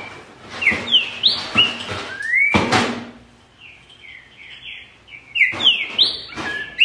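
Green-winged saltator (trinca-ferro) singing loud, clear whistled phrases of quick falling and rising notes, with a softer stretch in the middle. A couple of short hissy bursts cut in near the start and around three seconds in.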